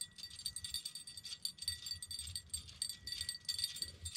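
Light metallic jingling in quick, uneven shakes, like a small bell, with a faint steady high ring, over a low rumble of wind on the microphone.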